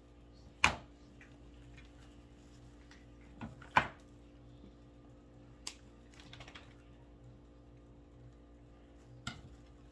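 About five sharp snips as the wire stems of artificial flowers are cut with wire clippers and scissors. The loudest snips come about a second in and about four seconds in.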